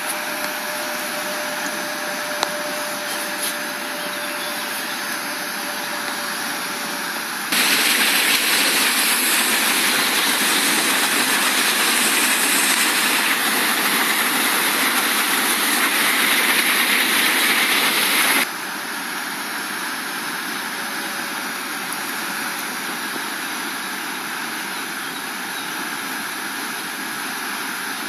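Steady rushing roar of a flooded river's standing wave and whitewater. About a quarter of the way in it jumps suddenly louder and brighter, heard closer to the breaking wave, and after about ten seconds it drops back just as suddenly.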